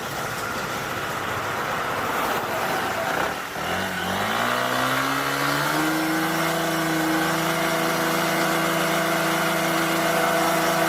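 Delivery motorcycle engine running rough and low, then revved up about four seconds in and held at steady high revs while its exhaust noise is measured.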